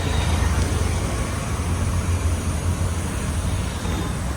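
Steady vehicle rumble with a low hum and road-traffic noise, without clear changes.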